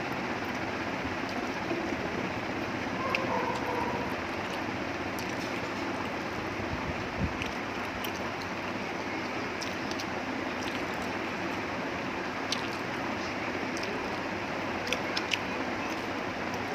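Chewing and biting on a chicken leg piece, heard as scattered small clicks and smacks over a steady hiss of background noise.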